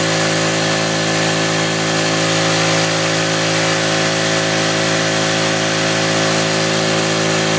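Small dredge pump motor running steadily: a constant, even hum with a hiss of water running through the dredge.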